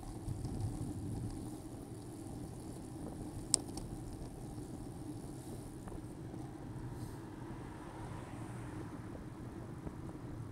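Steady low rumble of a bicycle ride heard through a bike-mounted camera's microphone: wind on the mic and tyres on the road, with one sharp click about three and a half seconds in.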